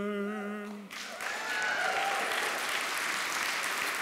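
A man's voice holding a long sung note a cappella, which stops about a second in; a congregation then starts applauding and keeps on.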